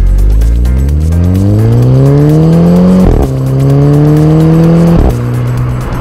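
Volkswagen Scirocco 2.0 TSI's turbocharged four-cylinder heard at the tailpipes through a Remus aftermarket rear silencer, accelerating hard. Revs climb, break briefly about three seconds in as the DSG gearbox shifts up, climb again, and drop with another upshift about five seconds in, then hold steady.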